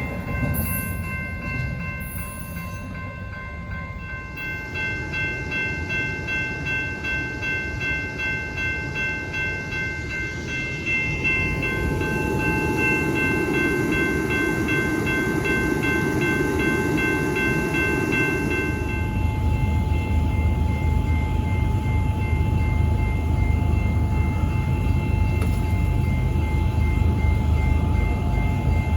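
A train passing, with steady high ringing tones that pulse in a regular beat. A heavier low rumble builds in the last third.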